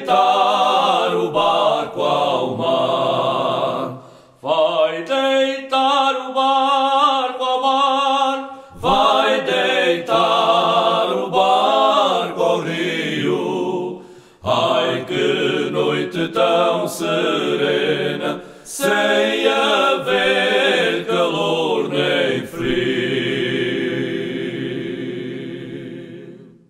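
Three men singing cante alentejano, Alentejo polyphonic song, unaccompanied and in harmony, in phrases broken by short breaths. The song ends on one long held chord that fades away.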